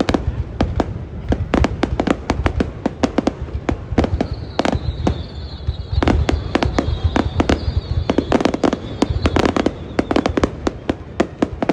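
Fireworks display: a dense, continuous barrage of bangs and cracks, several a second, over a low rumble. A faint high whistle runs through the middle few seconds.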